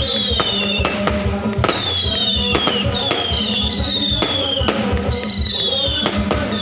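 Aerial fireworks going off in quick succession: a string of sharp bangs about every half second, mixed with repeated whistles that each fall in pitch over under a second.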